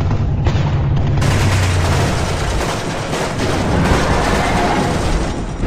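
Continuous rapid gunfire like machine-gun fire, with a low steady hum underneath for the first couple of seconds.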